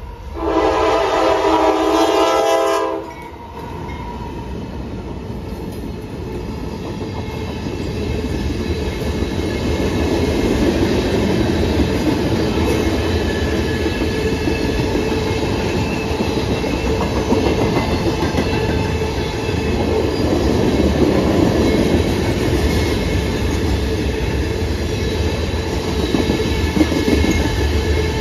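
Freight train horn sounding one long chord of about three seconds as the train approaches the grade crossing, a warning for the crossing. Then the freight train rolls through, locomotive and a string of tank cars, with wheels clattering on the rails in a steady rumble that builds over the next several seconds and holds.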